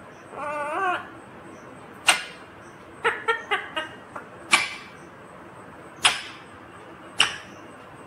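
Indian ringneck parakeet calling: a short warbling phrase at the start, then single sharp calls every second or two, with a quick run of four short notes in the middle.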